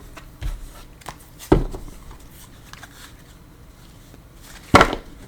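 Tarot cards being handled on a table: light card rustling and ticking with a few sharp taps, the loudest about a second and a half in and near the end.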